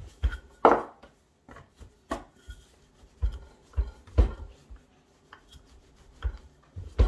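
Shortcrust pastry dough being rolled out with a wooden rolling pin and pressed by hand on a plastic board: a series of irregular thuds and knocks.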